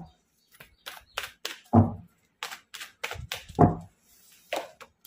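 A deck of tarot cards being shuffled by hand: a string of sharp card clicks and slaps, with two louder knocks about two and three and a half seconds in.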